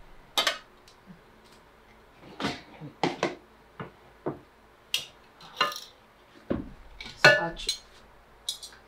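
Metal parts of a hand-cranked tomato strainer clinking and knocking as the chute is handled, tipped out and scraped with a spatula: about a dozen separate sharp knocks, the loudest about seven seconds in.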